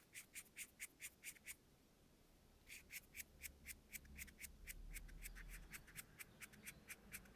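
Fingers brushing a Røde smartLav+ lavalier microphone, heard faintly as quick short rubbing strokes. There is a fast run of about eight strokes, a pause of about a second, then steady strokes at about four to five a second.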